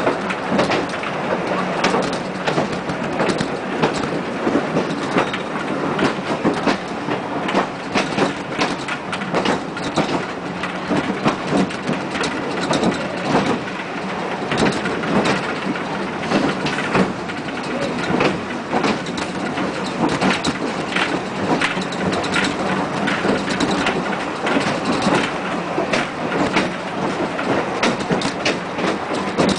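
A Blue Mountains Scenic Railway car rattles and clatters steadily as it runs down the steep incline. The rush of track noise is crowded with quick clicks and knocks.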